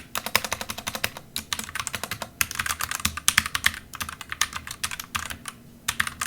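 Typing on a Womier WK61 mechanical keyboard: quick runs of sharp keystroke clicks, broken by short pauses between runs.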